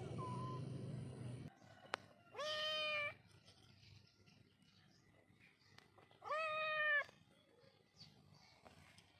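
A kitten meowing twice, two short, even-pitched calls a few seconds apart. A low background rumble at the start cuts off abruptly about a second and a half in.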